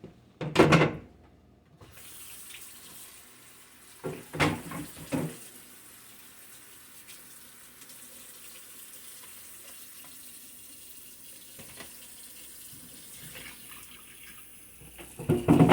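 Kitchen sink tap turned on about two seconds in and running steadily into the sink, for washing a knife. A couple of short louder sounds come before it and again about four seconds in, the loudest near the start.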